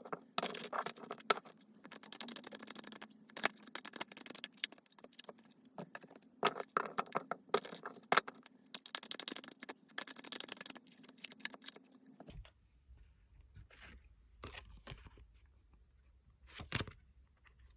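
Tarot cards being shuffled and handled: a quick run of rustling, flicking and clicking card sounds for about twelve seconds, then only a few separate taps and slides over a low hum.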